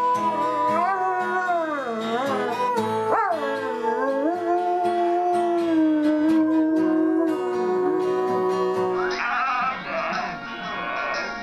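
A dog howling in long wavering notes that slide up and down, with music behind it. About nine seconds in it cuts to a different, noisier sound.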